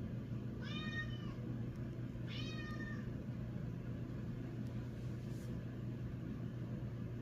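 Scottish Fold cat meowing twice, two short calls under a second each, about a second and a half apart, as a wake-up call.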